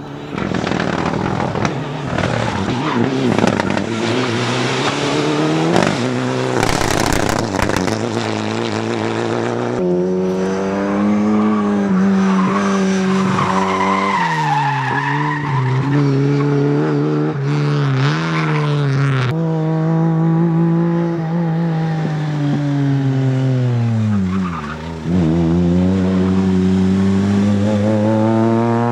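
Rally cars at racing speed, engines revving hard and rising and falling in pitch through gear changes, with tyres squealing in slides. The engine sound changes abruptly twice, and in one place the revs fall deeply and climb again.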